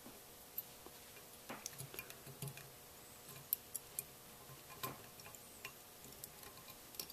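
Faint, irregular small metal clicks and taps as a screwdriver tip and fingers work a revolver's cylinder stop and its spring onto the pin inside the frame.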